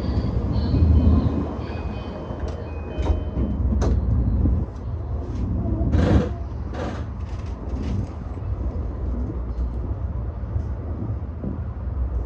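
E235 series electric train running along the line: a steady low rumble with sharp knocks from the wheels over rail joints, several between about three and seven seconds in.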